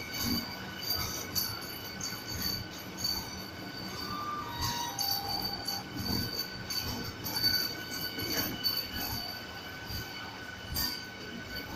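Vande Bharat Express electric train set rolling slowly past a station platform as it pulls in, with a steady high-pitched squeal of wheels on rail over an uneven rumble and knocking from the running gear. A short falling tone sounds about four seconds in.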